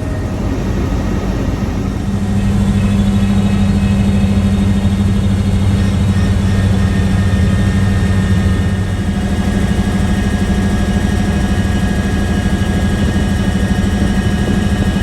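Helicopter running steadily: a loud low drone from engine and rotor with a faint high whine above it, rising a little in level about two seconds in.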